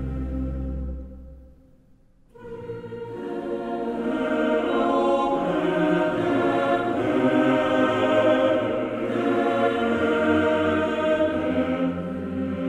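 Background music: a piece fades out, and after a brief pause about two seconds in, a choral piece of long held voices begins and swells.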